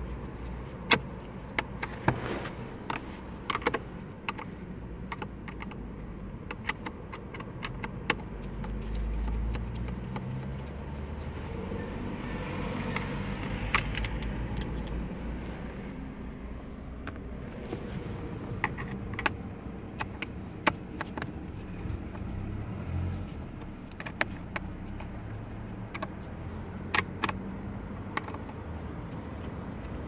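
Scattered sharp clicks and light knocks of a screwdriver and hand working on the plastic steering-column shroud, over a steady low rumble.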